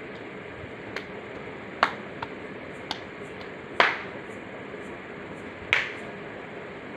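Six sharp clicks or snaps at irregular intervals, the loudest about four seconds in, over a steady background hiss.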